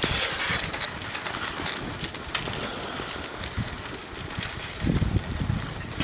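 Skis scraping and crackling over packed snow while being towed uphill on a drag ski lift, with a few low bumps about five seconds in.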